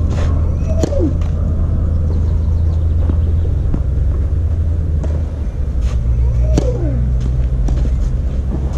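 Tennis ball struck by rackets on a clay court: a few sharp pops spread through, over a steady low rumble that dominates the sound.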